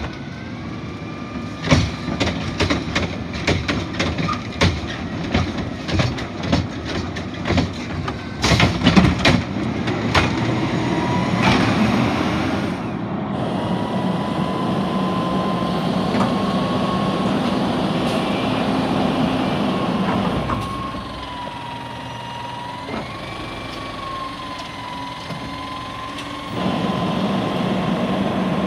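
Heil front-loader garbage truck with a Curotto Can tipping a cart, with repeated clanks and knocks for the first ten seconds or so. Then the engine revs and the hydraulics whine with a wavering pitch as the forks lift the can over the cab. The whine drops back at about twenty seconds and rises again near the end.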